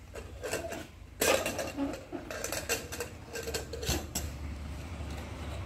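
Steel kitchen utensils and pots clinking and clattering as they are handled on a counter: a run of light knocks and clinks starting about a second in.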